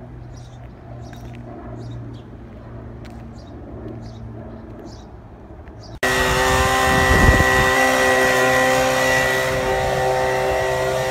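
Faint outdoor background with a low hum and scattered bird chirps. About six seconds in, a gas-powered handheld leaf blower cuts in loud at full throttle, running steadily as it blasts water and grit out of a pothole.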